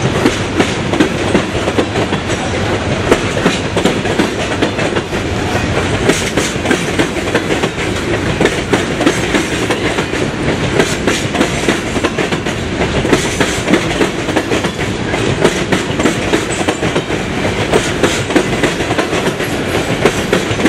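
Loaded PPLX coal hopper cars of a freight train rolling past, their steel wheels clacking steadily over the rail joints.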